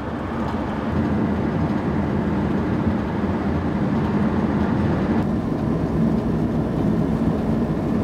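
Van driving at road speed, heard from inside the cab: a steady engine hum with tyre and road noise.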